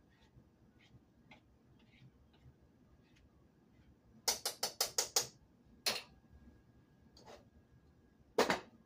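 Serving spoon tapping and clinking against pots and a plate as food is dished up: faint light taps at first, then a quick run of about six sharp taps partway through, then single taps, the loudest near the end.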